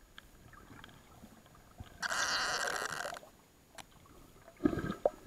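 Muffled underwater sound through a waterproof camera housing. A sustained rush of water or bubble noise lasts about a second from two seconds in, and a shorter burst of water noise comes near the end as the camera nears the surface.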